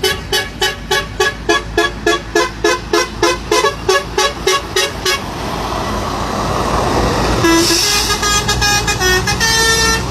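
Truck horn sounding a rapid run of short pitched blasts, about three or four a second, for around five seconds. A rush of noise then swells, and from about seven and a half seconds in a horn holds steady tones that step from one pitch to another.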